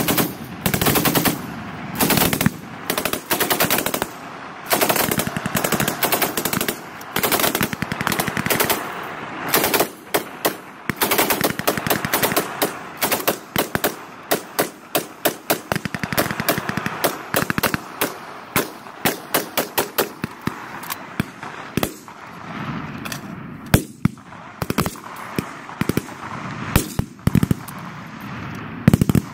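M240B belt-fed 7.62 mm machine gun firing bursts of automatic fire. The bursts are long and close together at first, then shorter and more spread out in the second half.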